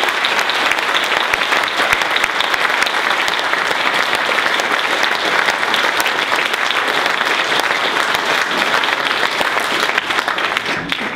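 Lecture-theatre audience clapping steadily, dying away near the end.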